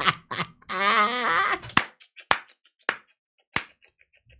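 A drawn-out, wavering voice sound, then four sharp smacks about two-thirds of a second apart, with faint light ticks between them.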